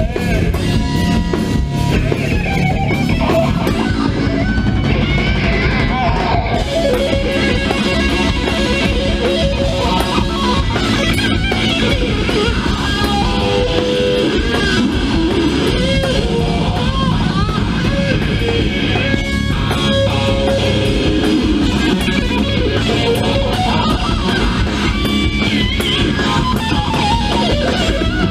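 Live rock band playing loudly: distorted electric guitar through Marshall amp stacks over drum kit and bass, the lead guitar playing lines with bent notes.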